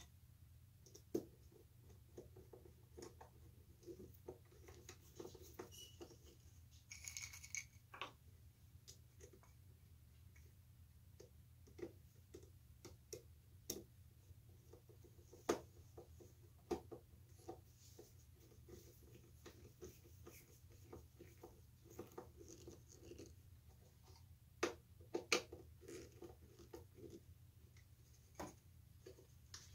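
Faint, scattered small clicks, taps and light scrapes of screws being set into a metal cabinet hinge and turned in by a hand screwdriver, with a brief rustle about seven seconds in. A steady low room hum runs underneath.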